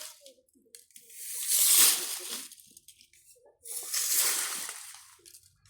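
Sea waves washing in twice, each a swell of hiss that rises and fades over about two seconds, with a short lull between them.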